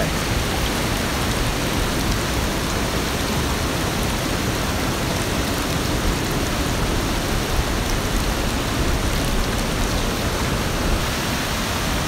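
Mountain river running high and fast with snowmelt, its whitewater rapids rushing steadily over boulders.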